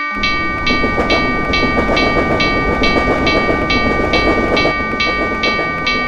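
Railroad crossing warning bell ringing steadily, about two and a half strokes a second, while a passing train's rumble and rattle come in just after the start.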